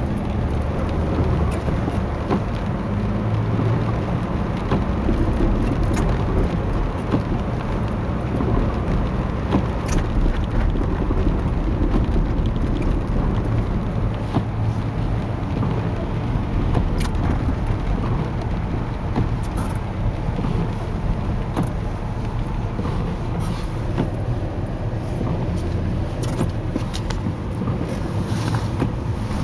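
Steady engine and road rumble heard inside a small truck driving on snow-covered streets, with scattered light clicks and rattles.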